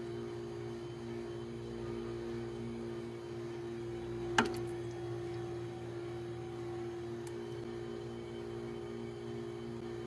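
A steady droning hum of a few held tones, one of them pulsing, with a single sharp click about four and a half seconds in.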